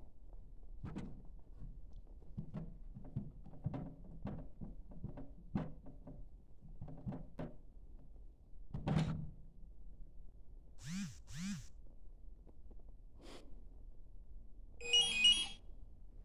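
Automatic dog ball launcher being loaded by a dog: a string of light knocks and taps on its plastic housing as the tennis ball is nudged into the hopper, a heavier thunk about nine seconds in, then near the end a brief, loud mechanical burst as the machine fires the ball.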